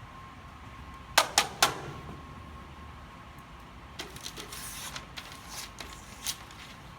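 Small Swiss Army knife being handled: three sharp metal clicks in quick succession about a second in, then a run of lighter clicks and scrapes a few seconds later, over a faint steady high hum.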